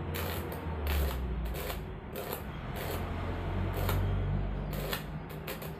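Homemade arc welder from a 5-amp transformer: the electrode tip touching the workpiece and crackling in about ten short spark bursts over a low electrical hum. The arc never holds and the rod won't stick or melt, because a transformer this small lets its voltage drop when shorted.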